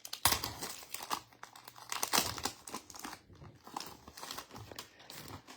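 Crinkling and tearing of a foil trading-card pack wrapper being opened by hand. It is a dense run of irregular crackles that stops near the end.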